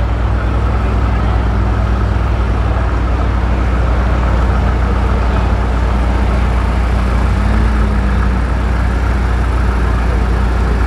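Mercedes-AMG GT63 S 4Matic+ and Audi RS6 Avant twin-turbo V8s idling side by side at a drag strip start line, a steady low rumble.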